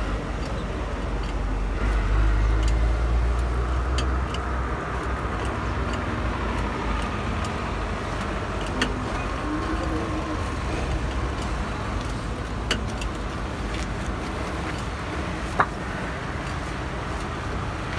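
Road traffic running by with a steady low rumble that swells for a couple of seconds early on, and scattered light clicks and taps, with one sharper tap near the end.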